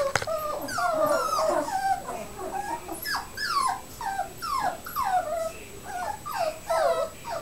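Coton de Tulear puppies whining and yipping: a long run of short, high calls, each falling in pitch, about two a second.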